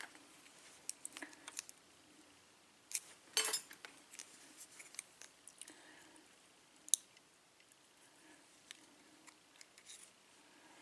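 Small sharp metal clicks and scrapes from handling a Schlage KIK lock cylinder and its parts while taking it apart, with a short rattling cluster about a third of the way in and one crisp click past the middle.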